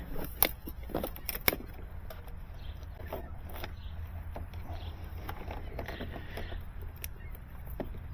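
Hand handling noise while mounting fiber hardware: several sharp clicks and knocks in the first second and a half, then lighter scattered taps over a steady low rumble.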